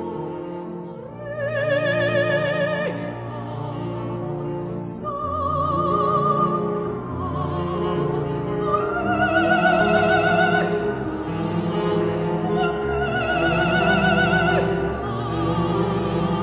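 Classical background music: a solo operatic voice singing long held notes with wide vibrato over orchestral accompaniment.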